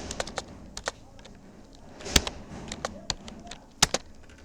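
Typing on a Rapoo computer keyboard: irregular keystroke clicks, several a second, with two louder strokes about two seconds in and near the end.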